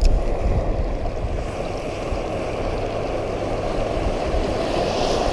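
Shallow surf washing and breaking, with wind rumbling on the microphone; the hiss of the wash swells near the end.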